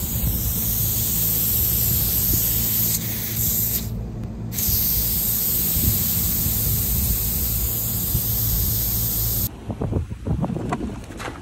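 Steady loud hiss over a low, even machinery hum. The hiss cuts off suddenly near the end, and a few brief rustles and knocks follow.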